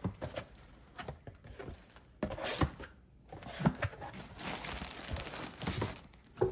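Cardboard box flaps being pulled open and packing tape torn loose, in irregular rustles and tears. Near the end a plastic bag crinkles as the bagged contents are lifted out.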